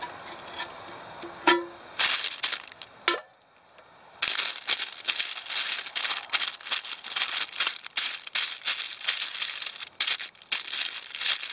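A wooden spatula scrapes sticky caramelized almonds from a non-stick pan, then pushes them about on baking paper. A few knocks and scrapes come first, then a short lull. From about four seconds in there is a dense, irregular rustle and crinkle of paper, with the almonds clattering against each other.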